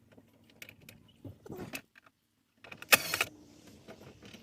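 Scattered light clicks and handling noises from work on plastic dashboard parts in a truck cab, then a short, loud rasping burst about three seconds in.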